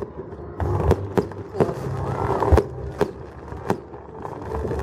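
Fireworks going off: about half a dozen sharp bangs at uneven intervals.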